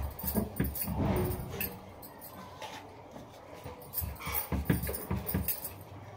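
Irregular knocking and clattering of kitchen utensils in two bursts, one in the first second or so and another from about four to five and a half seconds in.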